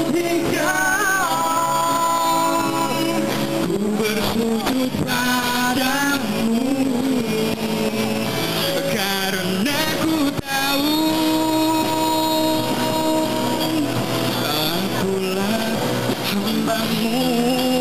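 A live band playing a song: a man singing long held notes over guitars.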